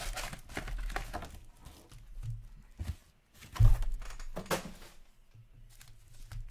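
Foil trading-card pack wrappers crinkling and tearing as packs are handled and opened, with one dull thump about three and a half seconds in.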